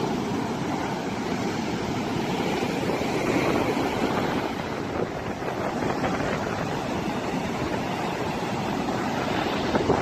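Rough sea surf breaking and washing up a sandy beach in a continuous, steady roar of waves, with wind buffeting the microphone.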